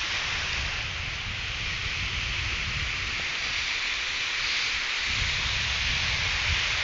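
Ocean surf breaking and washing up a sandy beach in a steady hiss, with wind buffeting the microphone in an uneven low rumble.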